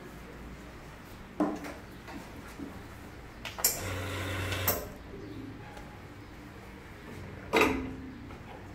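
Commercial espresso machine being worked: a metal clunk about a second and a half in, then about a second of pump hum and rushing water from the group head as a button is pressed, and a loud metal clunk near the end as the portafilter is handled at the group head.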